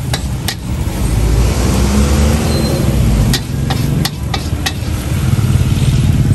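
Steady low rumble of the gas burner under a wok, with the metal ladle clanking against the wok about six times, twice near the start and in a quick cluster between about three and five seconds in.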